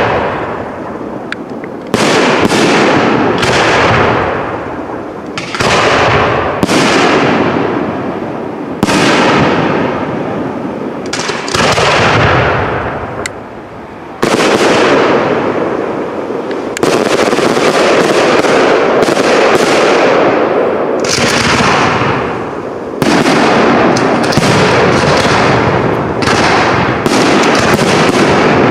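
Professional fireworks display: aerial shells bursting one after another, each sudden bang trailing off in an echo. The bursts come every second or two at first, then thicker and almost without a break through the second half as the barrage builds.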